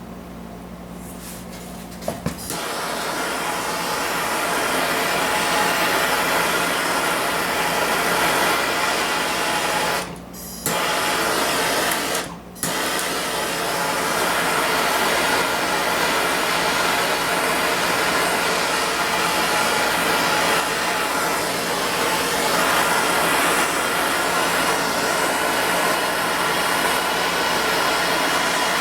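Hand-held MAPP gas torch with a self-igniting trigger clicking on about two seconds in, then burning with a steady loud rushing hiss that cuts out briefly twice near the middle. It is heating the steel tank to tin it for lead body filler.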